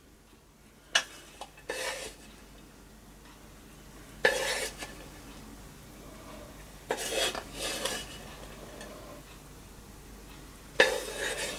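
Wooden spoon scraping diced filling out of a frying pan and onto raw minced beef: short bursts of scraping and clatter every few seconds, about five in all.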